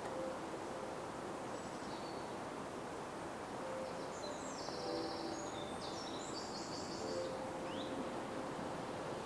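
Outdoor nature ambience: a steady airy hiss with faint low humming tones, a burst of high rapid trilling chirps about four to six seconds in, and a short rising chirp near the end.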